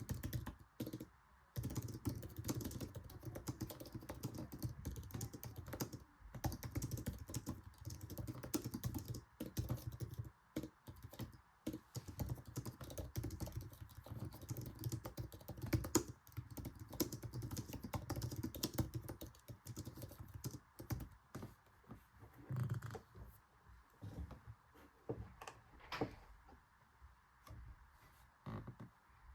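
Fast typing on an Apple Magic Keyboard: a dense, rapid stream of its low-profile scissor-switch key clicks, thinning to scattered keystrokes in the last several seconds.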